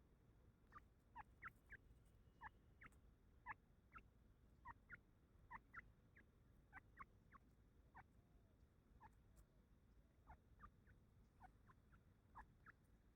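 Grey francolin calling faintly: a steady run of short, sharp notes, many in quick pairs, repeated a couple of times a second.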